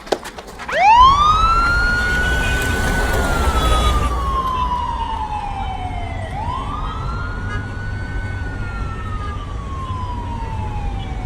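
Police van siren wailing: each cycle rises quickly, then falls slowly over about five seconds, starting just under a second in and repeating once, over the low rumble of the moving vehicle.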